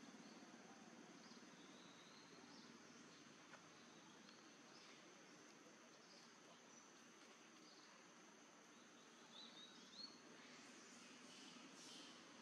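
Faint outdoor ambience: a steady insect drone with a thin, high, unbroken tone, and a few brief bird chirps, mostly near the end.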